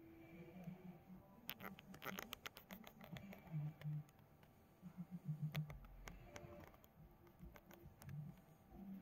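Faint handling noise: a quick run of light clicks and scratches from about a second and a half to three seconds in, then a few scattered clicks, over a low hum.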